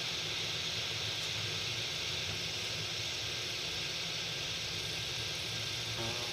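Steady radio hiss with a faint low hum under it and no programme audio: dead air on a NOAA weather radio channel.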